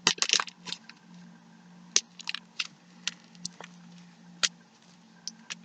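Fluffy shaving-cream slime being squished and pulled by hand, giving irregular sticky clicks and pops, over a steady low hum.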